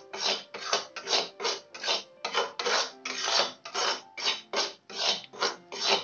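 Stainless-steel spatula scraping back and forth across the bottom of a kadai, stirring thick, bubbling jaggery syrup in steady strokes, about three a second. The jaggery is being cooked down towards the hard stage for peanut chikki.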